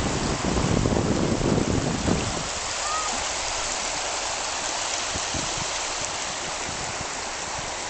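River water rushing and splashing in a steady, even hiss, with a low rumble over it for the first couple of seconds.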